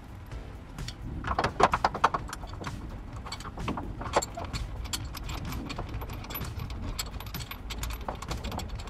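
Loose metal hardware, bolts, washers and brackets, clinking and rattling as it is handled, with a quick run of sharp metallic clicks about a second and a half in and scattered clinks after.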